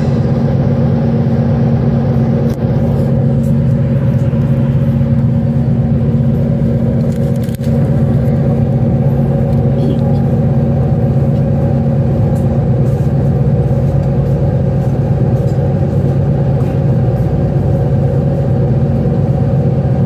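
Ocean Jet fast ferry's engines droning steadily with a deep, even hum, heard from inside the passenger cabin.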